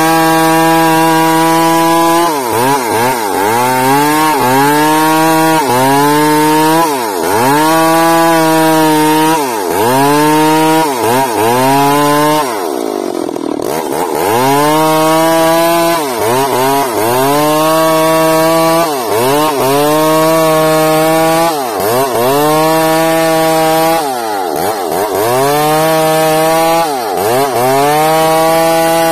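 Two-stroke chainsaw cutting bayur wood, its engine pitch repeatedly sagging and climbing back about every two seconds as the chain loads in the cut, with one longer, deeper dip about halfway.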